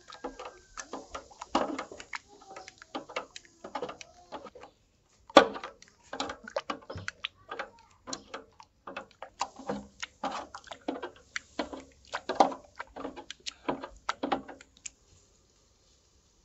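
Irregular clicks and knocks of kitchen utensils, a few a second, with one sharper knock about five seconds in; they stop shortly before the end.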